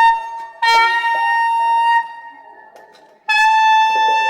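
Saxophone playing the same note three times: one held note ends just after the start, a second runs for over a second, and a third begins near the end. Each note has a rough growl layered under it, the sax being played with the growl technique.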